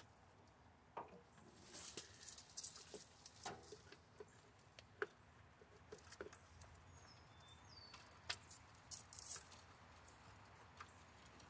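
Spark plug wires being worked loose by hand: scattered light clicks, snaps and rustles of the rubber boots and wires coming off, quiet overall.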